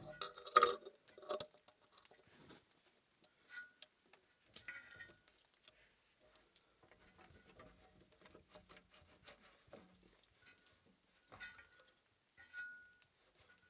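Sparse faint clicks, taps and light metallic clinks of hand work on small parts and tools, with a few short high chirps here and there.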